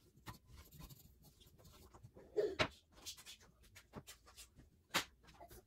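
Hands gathering chopped bell pepper pieces off a bamboo cutting board into a bowl: faint scraping and rustling, with a few sharp clicks and knocks as pieces and fingers hit the board and bowl.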